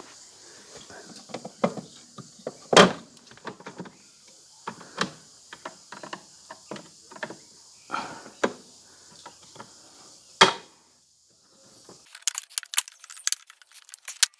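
Clicks, knocks and clatter from a dishwasher being taken apart by hand to get at its heater relay, with two louder knocks and, near the end, a quick run of small rattling clicks.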